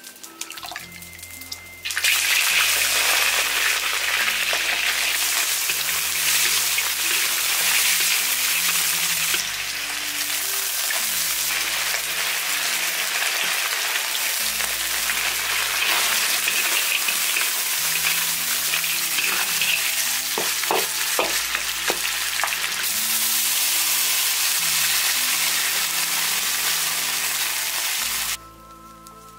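Chunks of boiled lamb tipped into hot oil in an iron wok, frying with a loud sizzle and stirred with a wooden spatula, with a few scrapes and knocks. The sizzle starts suddenly about two seconds in and cuts off sharply near the end. Background music with low notes runs underneath.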